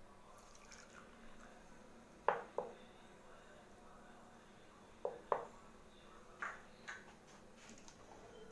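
A few light knocks of kitchenware on a wooden tabletop, a plastic measuring cup and a ceramic plate, while water is added to powdered gelatin to bloom it: two quick pairs of taps, then a couple of softer ones.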